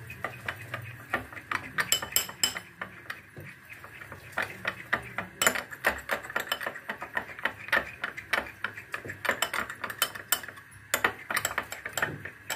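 A metal spoon beating a raw egg in a glass bowl: rapid, irregular clinks of the spoon against the glass.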